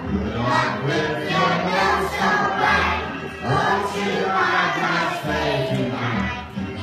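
Group of young children singing together as a choir over musical accompaniment.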